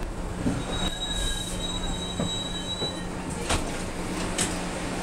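R62A subway car braking into a station over a steady rumble: the steel wheels squeal in thin high tones for about two seconds, and two sharp clicks follow near the end.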